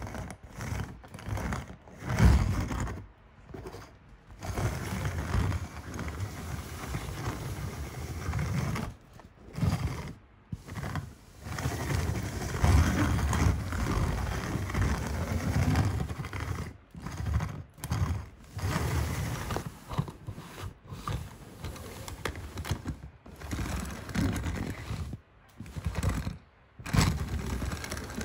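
Diecast toy cars pushed by hand and rolling across a tabletop: a low rolling sound in a string of short takes, each cutting off abruptly.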